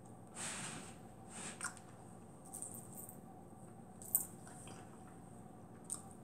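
A person eating fried fish with her fingers: faint wet mouth sounds of chewing and finger-licking, in short bursts with small smacks. A single sharp click a little past halfway is the loudest sound.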